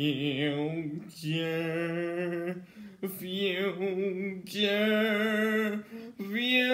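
A boy's voice singing five long held notes with a wobble in them, each a little higher than the last.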